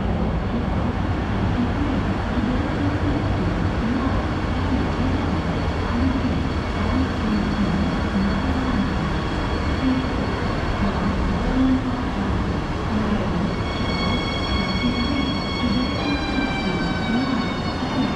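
A train running on rails with a steady rumble. Near the end a high whine of several tones sets in and then glides downward in pitch.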